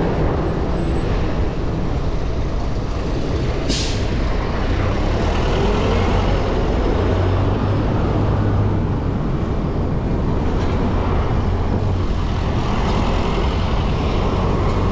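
Steady wind and road noise on a GoPro's microphone during a bicycle ride among traffic, with a short hiss about four seconds in.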